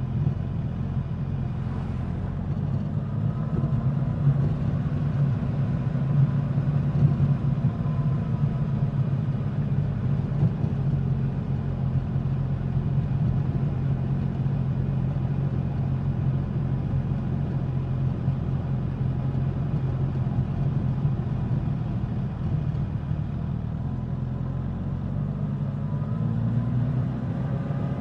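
Suzuki GSX-S1000's inline-four engine and exhaust while riding, mostly holding a steady speed. The engine note rises gently a few seconds in and climbs again near the end as the rider opens the throttle.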